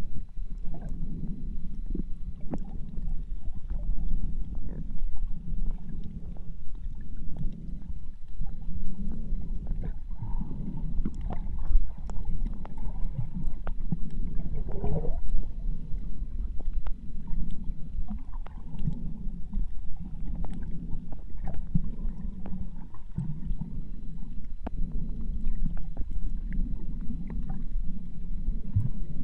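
Muffled underwater noise picked up by a submerged camera: a low rumble that swells and fades every second or so, with scattered sharp clicks.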